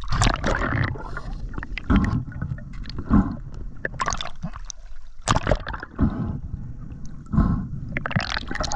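Water splashing and gurgling around a spearfisher's camera as he goes under, with irregular sudden splashes and knocks about once a second.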